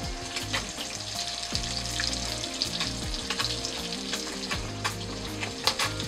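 Smelt frying in hot melted butter with salt and pepper in a nonstick skillet: a steady sizzle with frequent crackling pops.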